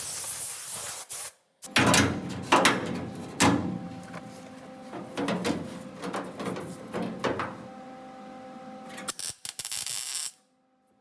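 Knocks and clanks of hand metal-working on sheet steel: three loud knocks about a second apart, then lighter clattering knocks, with a short hissing rush at the start and another near the end that cuts off suddenly.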